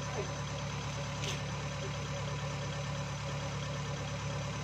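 Heavy diesel engine running steadily with an even low hum.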